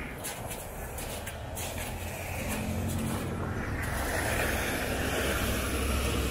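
Ford F-150 4x4 pickup truck driving up a slushy, snow-covered road, its engine hum and the swish of its tyres in the slush growing louder as it comes close over the last few seconds.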